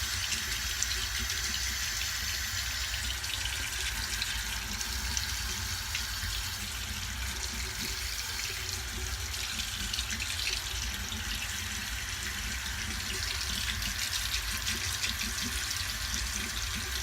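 Bathroom sink tap running steadily into the basin while the water warms up.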